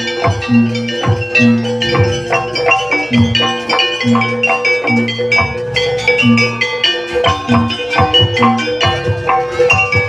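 Gamelan music accompanying a jaranan dance: rapid interlocking strikes on metallophones and gong-chimes over a low note sounding about once a second, with a steady held tone beneath.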